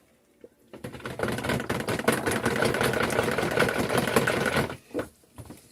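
Stick blender running in raw soap batter for about four seconds, blending in titanium dioxide to whiten it; it starts about a second in and cuts off near the end.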